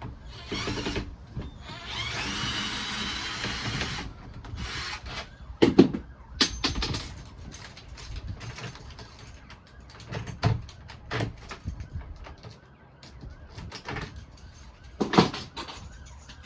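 A cordless drill-driver runs in two bursts, a short one and a longer one of about two seconds with a rising whine, driving out the door's handle screws. Then come scattered clicks and knocks of metal lock hardware being handled.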